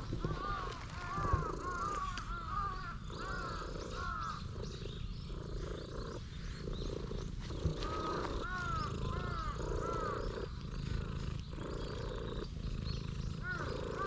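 Domestic cat purring loudly and continuously while being stroked, the purr swelling and easing about once a second with its breathing. Short repeated bird chirps sound in bursts over it.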